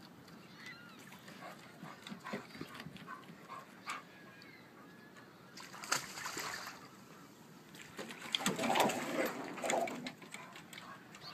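Sea otter splashing in the water, with faint squeaks and small clicks. There is a short burst of splashing about six seconds in and a louder, longer stretch of splashing from about eight to ten seconds.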